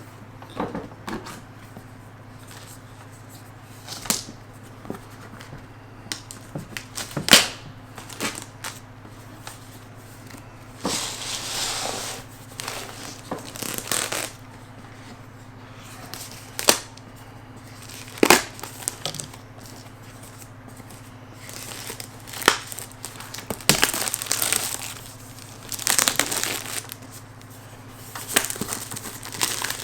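Packaging being handled and unwrapped by hand: bursts of plastic crinkling and tearing, with sharp clicks and knocks in between, over a steady low hum.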